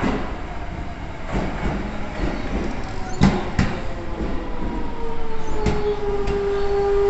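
Shin-Keisei electric commuter train arriving at a platform and slowing. Its wheels knock over rail joints about six times, some in quick pairs, under a whine that falls in pitch and then settles into a steady tone.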